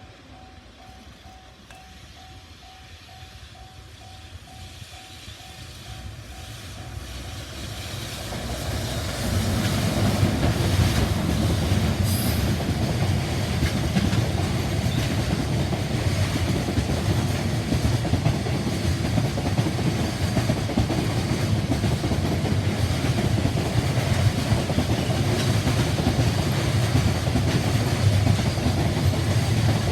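A level-crossing warning bell rings faintly and evenly while an electric multiple-unit train approaches. The train noise grows louder over about nine seconds, and then the train passes close by with its wheels running on the rails, loud and steady to the end.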